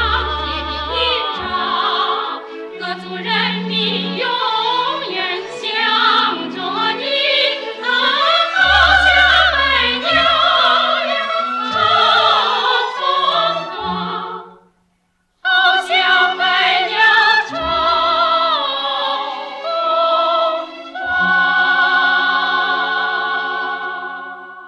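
Female lead vocal singing a slow pop-R&B ballad live with a band and backing vocals. The sound drops out for under a second about 15 s in, and the song ends on a long held chord that fades away near the end.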